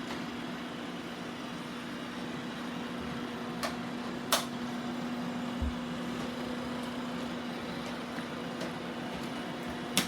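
Robot vacuum cleaners running on a rug: a steady hum of motors and brushes with a constant low tone. A few sharp clicks come through, about three and a half and four and a half seconds in and again near the end.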